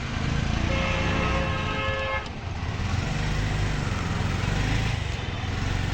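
A vehicle horn sounds one steady note for about a second and a half and cuts off sharply, over the continuous engine and road noise of traffic.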